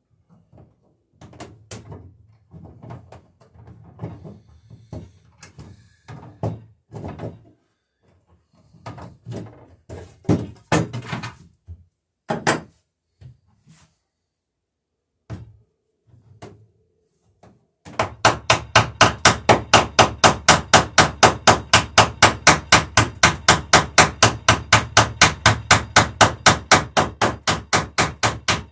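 Hammer riveting the lapped wooden planking of a dory hull. First come scattered knocks and taps, then about two-thirds of the way in a fast, even run of hammer blows, about four a second, peening rivets tight.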